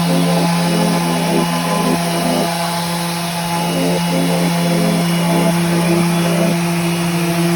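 Mirka electric sander running with its dust extractor for dustless sanding: a steady motor hum with a continuous airy hiss over it, the level rising and falling slightly as the sander works the surface.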